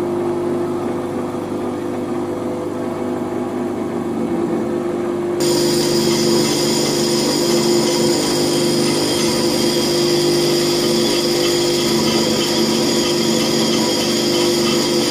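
Bench grinder running with a steady hum. From about five seconds in, a lathe tool bit for square-thread cutting is held against the spinning wheel, adding a steady grinding hiss as it is sharpened.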